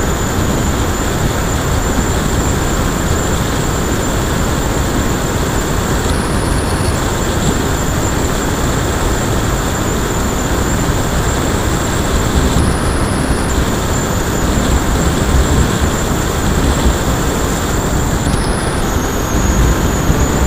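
Onboard sound of an electric RC plane in flight: the brushless motor and propeller whine steadily over heavy wind rush and rumble. The high whine jumps briefly to a higher pitch three times, and the rumble grows a little louder near the end.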